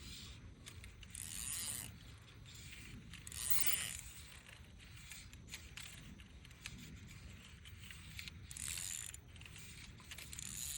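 Fly reel ratcheting in four short bursts of clicking, each under a second long, as line is worked on or off the reel.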